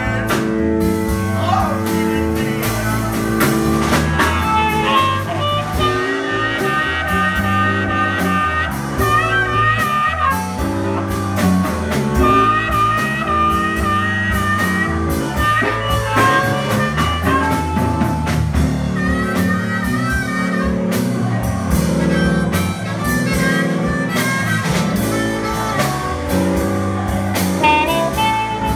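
Live blues band playing, with a harmonica, cupped to a microphone, taking the lead over electric guitar, bass and drums.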